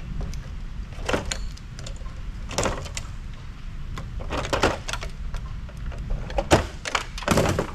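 Plastic connectors being pried and popped off a circuit board: irregular sharp clicks and short scrapes in small clusters.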